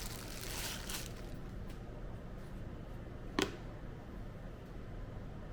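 Packaging and a small boxed item being handled: rustling during the first second, then a single sharp click about three and a half seconds in, over a steady low hum.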